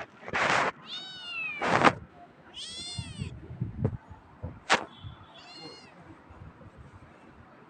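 Domestic cat meowing repeatedly, about three meows in the first six seconds, mixed with a few short noisy bursts and clicks, then quieter.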